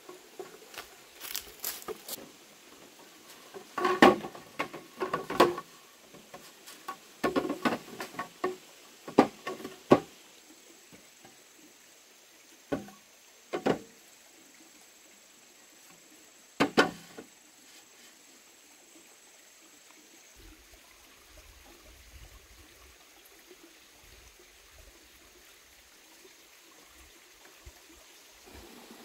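Irregular sharp knocks and clatters with a hollow ring, in clusters over the first ten seconds, then a few single knocks, then only faint background hiss.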